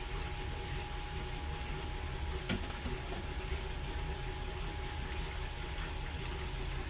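Volvo Penta inboard boat engine idling steadily while its raw-water pump draws antifreeze poured into a funnel on the sea strainer hose, flushing the exhaust risers for winter. There is a single sharp click about two and a half seconds in.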